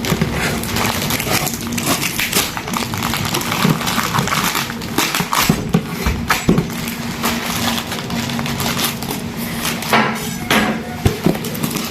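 Packaging being handled during an unboxing: rustling and crinkling with many scattered knocks and taps, over a faint steady low hum.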